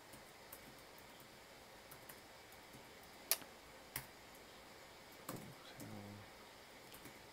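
Faint, sparse typing on a computer keyboard: scattered key clicks, two of them louder about three and four seconds in. A brief low hum follows about six seconds in.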